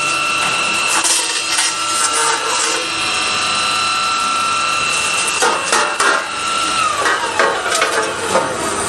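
Circular cold saw on a tube roll forming line cutting welded steel tube, a steady high whine over a dense grinding noise. About seven seconds in the whine drops in pitch. Sharp metal clanks and knocks come from the clamps and line machinery through the second half.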